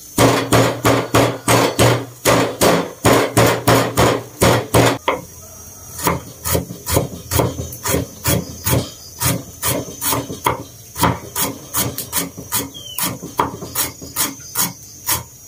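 Cleaver chopping lemongrass on a round wooden chopping board: steady knocks of the blade into the wood, about three a second. A low hum under the knocks stops about five seconds in.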